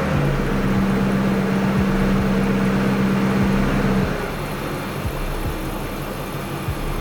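BMW E39 540i's 4.4-litre V8 idling just after starting, freshly filled with new oil; the idle is raised at first and settles lower and quieter about four seconds in.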